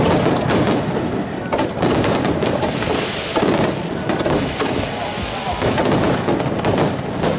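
Aerial fireworks bursting in a continuous barrage: many bangs in quick succession over dense crackling.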